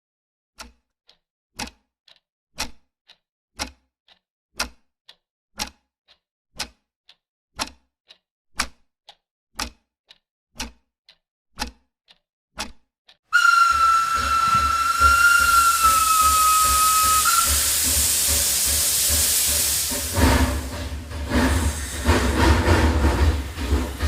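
Sharp ticks about once a second, with fainter ticks between them, for roughly the first half. Then a steam locomotive's whistle blows suddenly: one steady, slightly wavering note for about four seconds, over loud steam hiss. The locomotive then starts to pull away with a low rumble and uneven chuffs.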